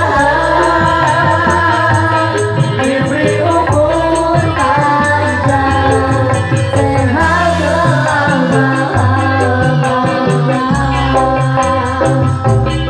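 Live dangdut koplo band playing, with several voices singing together into microphones over bass, guitar and a quick, steady rattling percussion beat.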